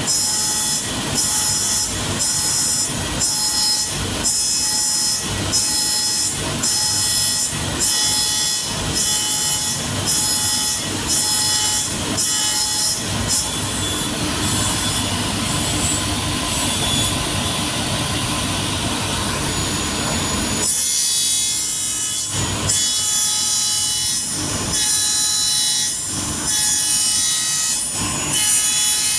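Wood being sawn, in regular back-and-forth strokes about one and a half a second, then a steadier rasping stretch; about two-thirds of the way through the sound changes to a different run of strokes.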